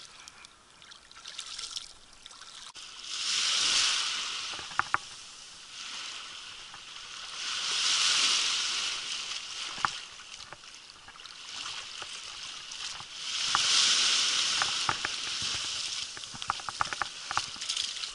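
Small waves washing up the shore, each surge hissing in and fading over a couple of seconds, three times, with scattered small sharp clicks between them.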